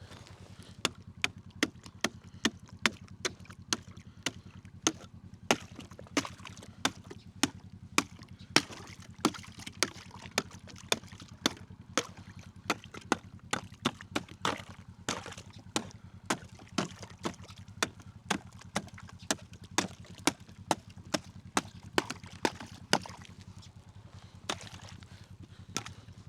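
Frozen-over cattle waterer being beaten with a hand tool to break the ice open: a long run of sharp blows, about two a second, then a few last strikes near the end.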